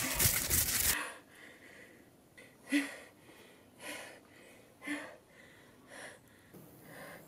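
A young woman gasping and sniffing in short, separate breaths, about one a second, after a louder, dense sound that cuts off about a second in.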